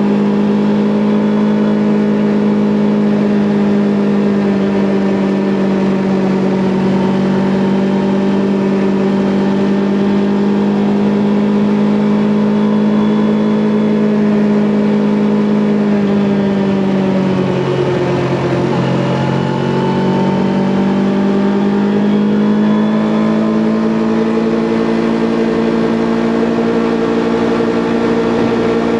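Kawasaki Ninja 400's parallel-twin engine running steadily at cruising revs while riding. About 18 seconds in, the engine note drops briefly, then climbs back and holds a little higher.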